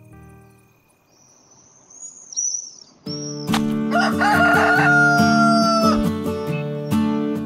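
A rooster crows once, a long call that drops in pitch at the end, over cheerful music that starts about a second before it.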